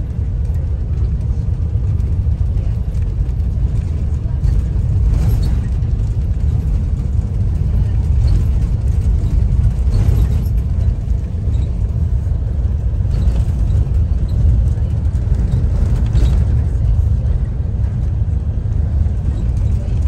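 Tour bus driving, a steady low engine and road rumble heard from inside the passenger cabin.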